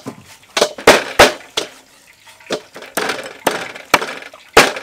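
Cleavers chopping raw chicken wings, a string of sharp, uneven chops from more than one cutter, with a short lull near the middle.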